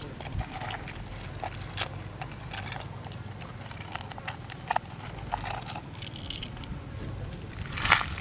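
Cooked snail shells clicking and knocking against one another and on a wooden board as they are handled and the meat is picked out with a stick: irregular light taps, with a louder knock near the end.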